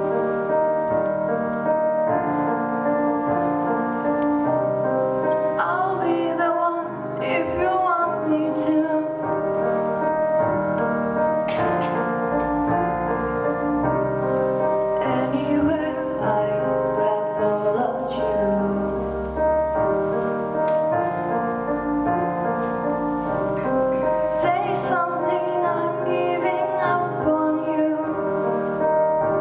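A female singer performing a slow song with sustained piano chords behind her, her voice wavering and gliding on held notes.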